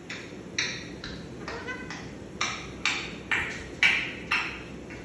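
African grey parrot giving a run of short, sharp notes, one after another, settling to about two a second, with a brief stepped whistle about a second and a half in.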